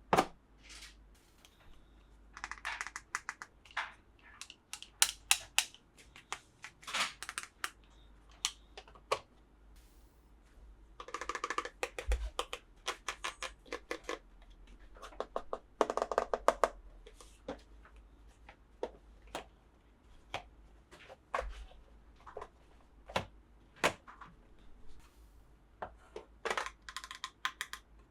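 Hard plastic toy pieces and packaging being handled close up: a string of sharp clicks and taps, with two longer rustles near the middle.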